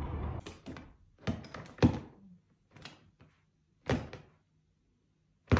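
A run of about six short, sharp thumps and slaps with near silence between them, the loudest a little under two seconds in.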